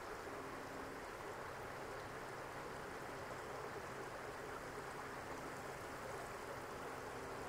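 Low, steady rush of running water, even and unchanging throughout.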